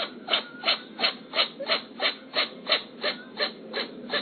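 Stray cat sneezing over and over in a rapid, even fit, about three sneezes a second.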